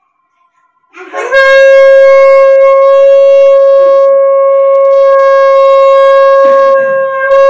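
Conch shell (shankha) blown in long held blasts, swooping up into one steady, brassy note about a second in. It breaks briefly for breath near the end, then sounds again.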